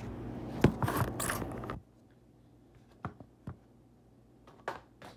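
A phone being handled close to its microphone: rustling and sharp knocks over a steady low hum. The hum cuts off suddenly about two seconds in, leaving a few faint clicks and taps.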